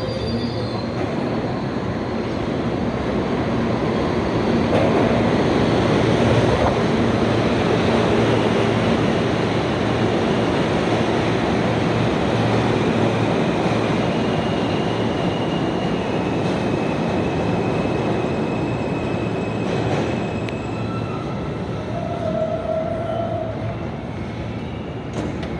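New York City Subway R160 train pulling into an underground station. Its wheels and running gear rumble loudest as the cars pass, a high whine steps down in pitch as it slows to a stop, and a short tone sounds near the end as it stands.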